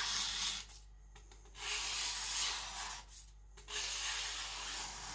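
Gyuto kitchen knife slicing through paper in three long rasping strokes as a cutting test of a 400-grit edge, which cuts but not cleanly.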